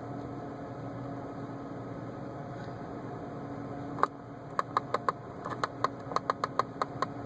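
Steady hum inside the car cabin; about four seconds in, a sharp click, then quick runs of small clicks, about six a second, as the rotary switch on the right-hand stalk of a BMW E46 is twisted to scroll the clock.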